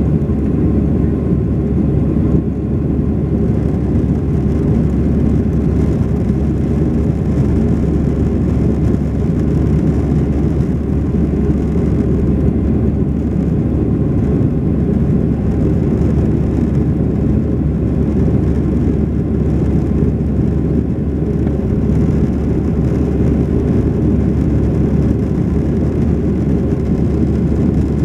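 Jet airliner's engines and rushing air heard inside the passenger cabin as a steady low rumble while the plane climbs after takeoff.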